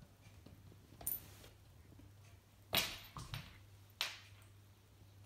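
A kitten's paws and body scuffing and bumping on a hardwood floor as it stumbles and flops onto its side, still unsteady from anesthesia. There are a few short, sudden scuffs: one about a second in, the loudest near the middle followed by two smaller ones, and another about four seconds in.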